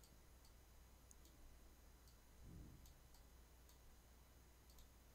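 Near silence: room tone with a handful of faint, sharp clicks spread through it.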